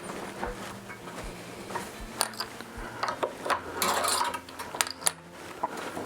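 Guitar tuning peg being turned to wind a new string on, with metallic clicks and rattles of the string and tuner, bunched together in the middle of the stretch.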